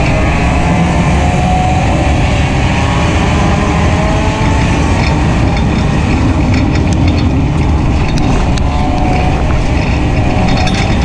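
Race car's four-cylinder engine running hard under load, heard from inside the car, its pitch gently rising and falling with the throttle. Scattered sharp clicks and rattles join in over the second half.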